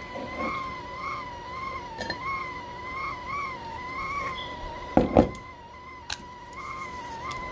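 A high, slowly wavering tone with a fainter one an octave above, like a backing-music melody line. About five seconds in, two quick knocks as a glass jar is set down on the counter, with a few light clicks of handling.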